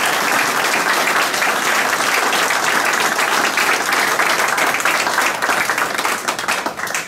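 An audience applauding with sustained clapping that dies away near the end.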